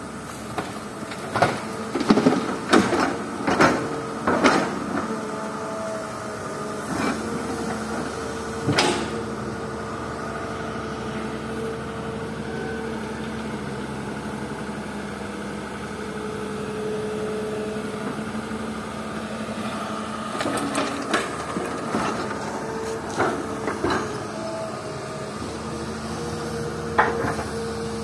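Heavy diesel engine of an excavator running steadily, with bursts of clanks and thuds as rocky fill is dropped into a dump truck's steel bed: a cluster of knocks in the first few seconds and another about twenty seconds in.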